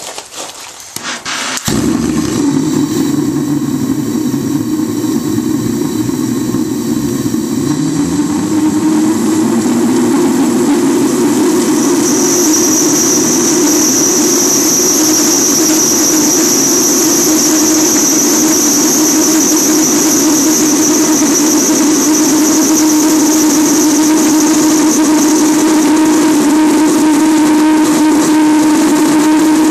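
Small propane-fuelled valveless pressure jet engine lighting about two seconds in, then running loudly and steadily. Its tone climbs a little and a high whine joins in as the fuel coil heats up and the engine works up toward full thrust.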